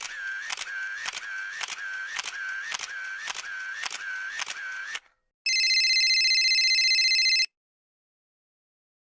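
A quick, even series of sharp mechanical clicks, nearly three a second, for about five seconds, then a steady electronic buzzing ring for about two seconds.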